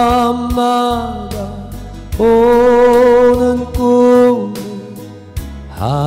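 A male singer's voice holding long, slow notes with vibrato in a Korean folk song, over soft instrumental accompaniment; near the end the voice slides up into the next phrase.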